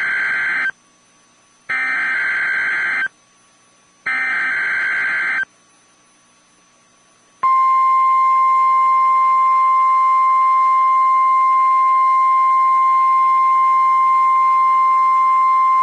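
NOAA Weather Radio warning alarm test: buzzing SAME digital header bursts, three in all, each about a second and a half long with short hissy gaps between them. About seven seconds in comes the steady 1050 Hz warning alarm tone, a single loud unbroken tone.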